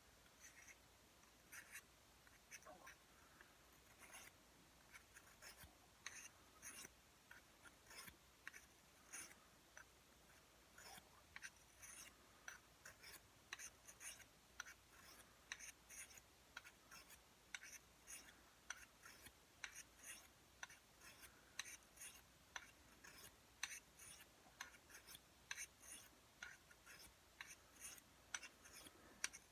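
Steel dagger blade stroked across an oiled fine sharpening stone: faint, short scrapes repeated about one or two a second.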